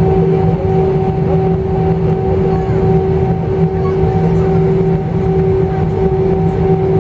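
Cabin noise inside a taxiing Airbus A318: the jet engines' steady hum of several held tones over a low rumble.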